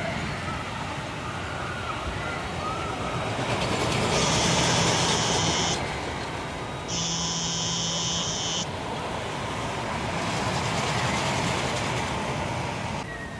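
Two long blasts of a horn, each about a second and a half, over a loud rushing noise that swells and then fades.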